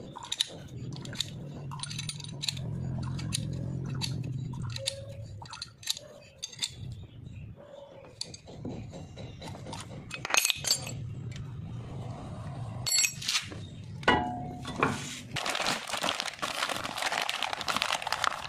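Metal clicks and clinks of a screw-type G-clamp being wound in against a brake caliper to push its piston back, over a low steady hum. Near the end, a plastic bag crinkling as a new brake disc is unwrapped.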